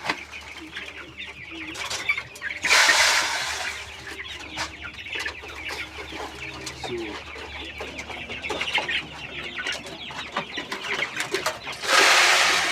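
A flock of four-week-old broiler chickens clucking and calling while feeding, with many quick small ticks through it; two louder rushing bursts come about three seconds in and near the end.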